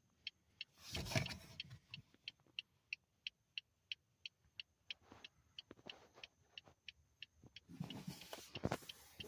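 Light, evenly spaced ticking from a car's dashboard warning, about three ticks a second, with a short rustle about a second in. Near the end the ticking stops and a louder rough whirring begins as the engine starts to be cranked over.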